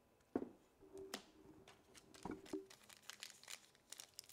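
Quiet handling of trading cards: a sharp tap about a third of a second in, then the light crinkling of a foil card-pack wrapper building toward the end. A faint steady low tone runs through the middle for about two seconds.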